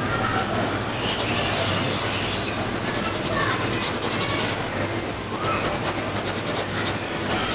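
Soft graphite pencil shading on drawing paper: rapid back-and-forth scratchy strokes, in runs of a second or two with short pauses between.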